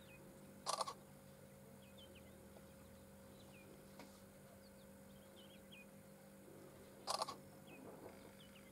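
Faint high chirps of small birds over a steady low hum. About a second in, and again near the end, there is a short, loud, harsh burst of noise.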